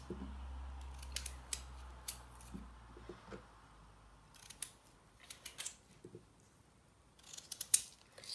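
Small kitchen knife slicing through a raw peeled potato held in the hand: short, crisp snipping cuts that come in several quick clusters.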